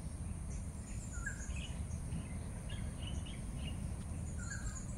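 Outdoor pond-side ambience: scattered short bird chirps over a steady low rumble, with a thin steady high-pitched tone above.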